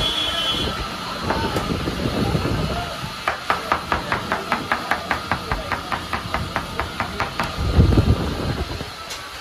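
Rapid, even run of about twenty sharp taps, roughly five a second, lasting around four seconds, over busy background noise, with a low rumble near the end.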